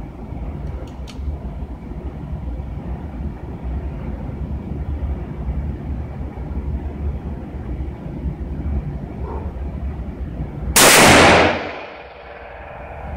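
A single shot from a Smith & Wesson .500 Magnum revolver, near the end: one very loud blast that overloads the recording, followed by a short ringing tail from the room. Before it there is a steady low rumble and a couple of faint clicks.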